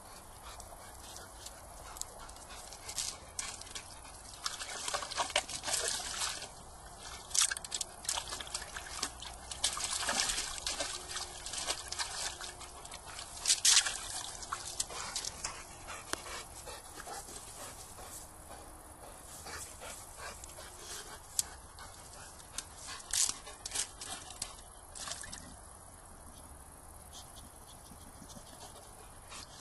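A boxer dog pawing and splashing in a stone water trough as it fishes for a ball, giving irregular splashes and sloshes, the loudest about halfway through.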